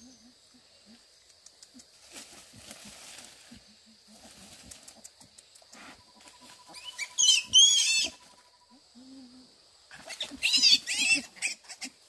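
Newborn piglets squealing shrilly in two loud bouts, about seven and ten seconds in, with short low grunts between.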